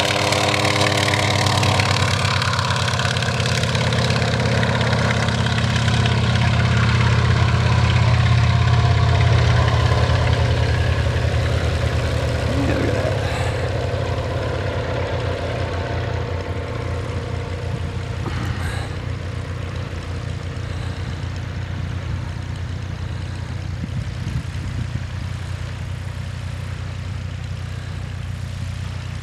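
Antonov An-2 biplane's nine-cylinder radial engine at takeoff power as the plane rolls down the runway and climbs away, loudest about a quarter of the way in, then fading steadily as it recedes.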